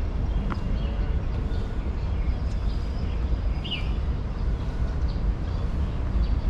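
Outdoor park ambience: a steady low rumble with a few short bird chirps, one clearer chirp near the end.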